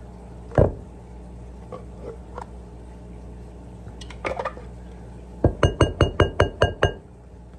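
Wire whisk striking the sides of a glass mixing bowl: one knock about half a second in, a few light clicks, then a quick, even run of about nine ringing clinks, roughly six a second, near the end.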